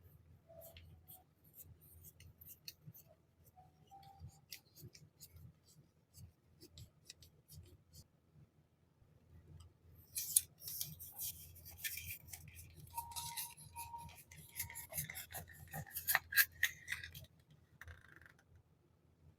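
Hands handling packaged stationery items: scattered light taps and clicks, then from about ten seconds in a denser, louder run of crackling and rustling for several seconds.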